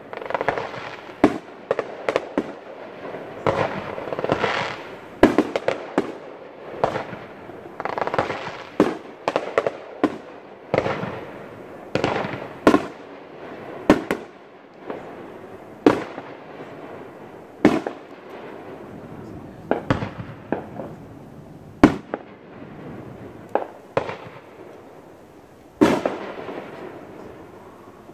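Fireworks going off: a long string of sharp bangs, with crackling hiss swelling up between them. The bangs come about once a second at first and thin out to about one every two seconds after the middle.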